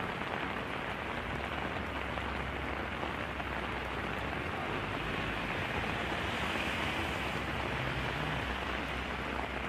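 Steady rain falling, an even hiss, with a low rumble underneath.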